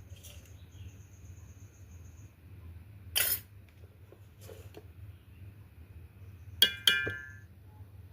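Kitchenware being handled while a drink is made: a brief scraping rustle about three seconds in, then two sharp clinks close together, each with a short ring, near the end.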